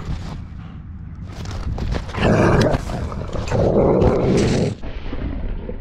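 Two dogs growling during rough wrestling play, with two loud bouts about two and three and a half seconds in. Steady rumble and scuffing of fur and harness against the body-mounted camera underneath.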